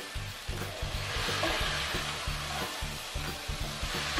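Bottle gourd and potato pieces sizzling in a pot as they are stirred, a hiss that grows louder about a second in and eases toward the end. Background music with a low repeating beat runs underneath.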